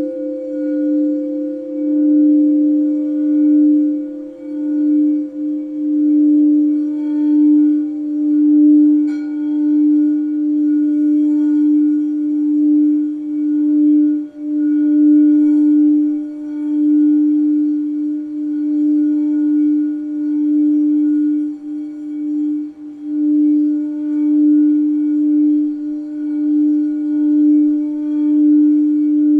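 Crystal quartz singing bowl being played continuously, holding one steady low note whose loudness swells and fades in a slow, uneven pulse, with faint higher ringing tones above it; a higher tone dies away over the first several seconds.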